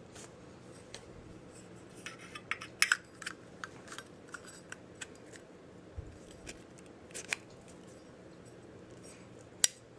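Small metallic clicks and taps of a Zippo lighter being handled, with a cluster of taps around two to three seconds in and a sharp click near the end.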